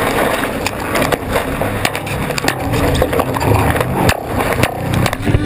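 Wind buffeting an onboard microphone and spray rushing off the hull of a racing catamaran sailing fast, with frequent sharp knocks from water hitting the hull.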